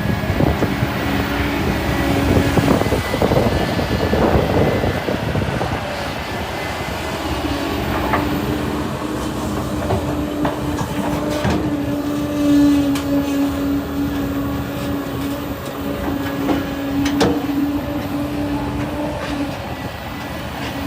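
Excavator working: its diesel engine runs under load, and a steady hydraulic whine comes in about a third of the way through and holds until near the end. A few sharp metallic knocks sound over it.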